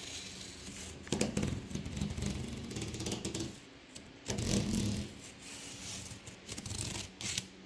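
Knife blade slicing through packing tape along the seam of a large cardboard box, drawn in strokes, loudest about a second in and again about four and a half seconds in.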